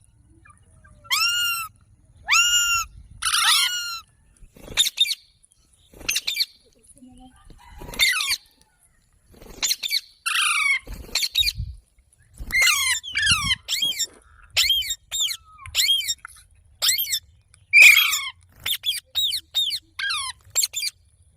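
Green parrot calling: a series of short, high, shrill calls, each an arching note, repeated about once a second and coming in quicker runs near the end.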